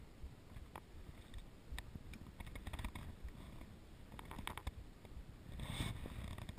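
Faint low wind rumble on the microphone, with scattered small clicks and ticks. A brief rush of noise comes near the end.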